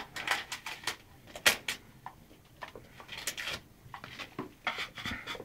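Wallpaper being scraped and torn from a wall in short, irregular scratchy rasps and rips, the sharpest about a second and a half in. A dog is tugging at the paper with its teeth while a hand scraper works the wall alongside.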